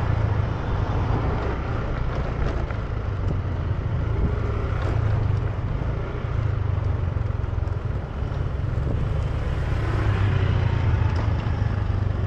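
Motor scooter riding at a slow, steady speed: its engine running under heavy, even wind rumble on the camera microphone.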